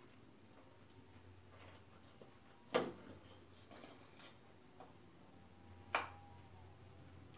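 Two sharp knocks about three seconds apart, each with a short faint ring, from hands working at the raised fuel tank of a motorcycle, over faint room tone.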